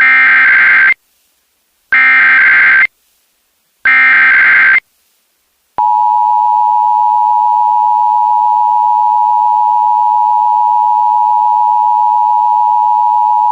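Emergency Alert System SAME header: three bursts of digital data tones about two seconds apart, which encode the alert, followed about six seconds in by the steady two-tone EAS attention signal, the sign that an alert message is about to be read.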